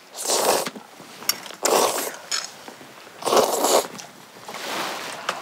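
A person slurping noodles: three loud slurps about a second and a half apart, then a softer, longer one near the end.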